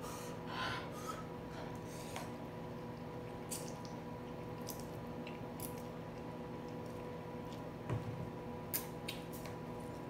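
Quiet eating of spicy instant noodles: a few short clicks and wet smacks of a fork in the bowl, chewing, and a sip from the bowl, over a steady hum.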